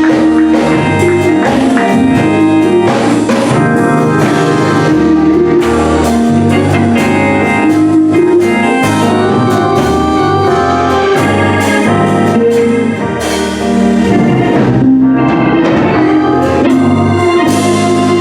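Instrumental church music led by an organ, with keyboard chords and drums keeping a beat.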